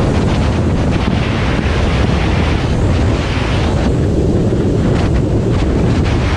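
Heavy wind buffeting the microphone over rushing, slapping water, as a bass boat runs at speed across the lake.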